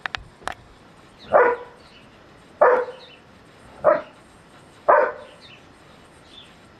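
Briard barking four times, single deep barks about a second apart, after a few sharp clicks at the start.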